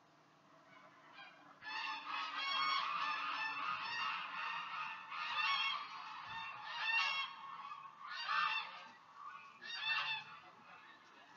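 A flock of birds calling, many honking calls overlapping at once. They start about two seconds in, come in several loud waves, and die away near the end.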